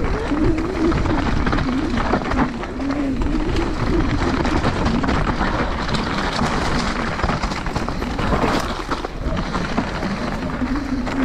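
Mountain bike on a fast downhill run: tyres on dirt and rocks with a constant rush of noise, the bike knocking and rattling over bumps, and a faint hum that rises and falls in pitch underneath.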